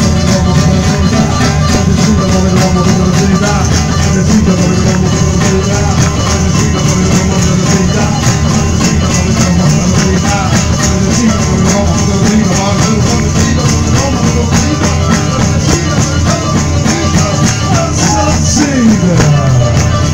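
Live pizzica folk music: tamburelli (frame drums with jingles) beaten in a fast, steady rhythm, with a plucked stringed instrument playing along.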